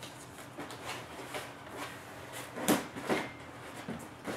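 Rubbing and scraping as a 1/12-scale HG P-802 8x8 RC truck is pulled up by straps out of a tight-fitting foam carry case, with two louder knocks near three seconds in.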